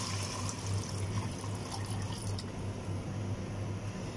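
Water poured from a jug into an aluminium cooking pot, splashing and tailing off over the first two seconds or so, over a steady low hum.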